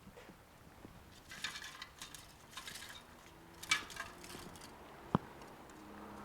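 Small tools and parts being handled during phone repair work: light clicks, taps and short scraping rustles, with one sharp click about five seconds in.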